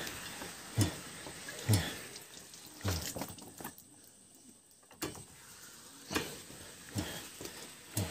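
Rubber sheet rolling machine's grooved steel rollers turning as a wet natural-rubber sheet is pressed through them, with a knock roughly once a second and a short quiet gap midway. Water squeezed from the sheet splashes and drips.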